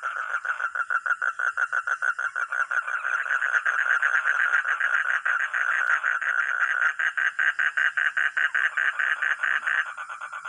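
Frog calling: a continuous, rapid, pulsed croaking trill of about seven pulses a second. Near the end the louder call stops and fainter pulsing carries on.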